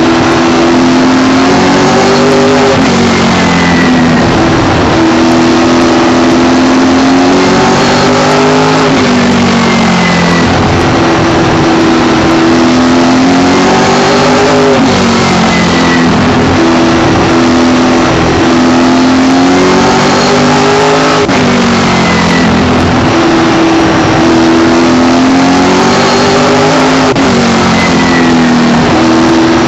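Late model race car's V8 engine at race pace, heard from the cockpit: it holds high revs down each straight, then drops off and climbs back up through each turn, a lap about every six seconds.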